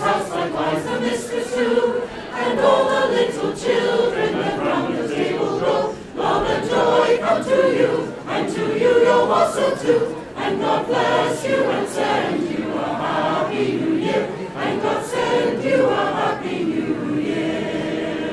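Mixed choir of men's and women's voices singing a Christmas carol in harmony, in phrases with short breaks for breath, growing quieter near the end.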